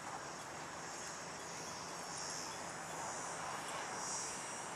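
Steady chirring of insects in the field, a high-pitched buzz that swells twice, about two and four seconds in.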